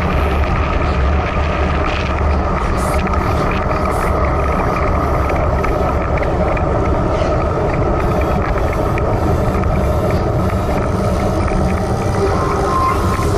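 Steady wind buffeting on a bike-mounted camera's microphone while a road bike rolls at about 25–29 km/h, with road noise from the tyres on wet tarmac.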